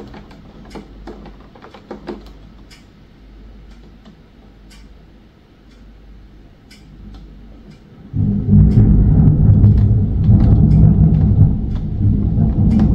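Rain on a window, with separate drops ticking. About eight seconds in, loud low thunder starts suddenly and keeps rumbling.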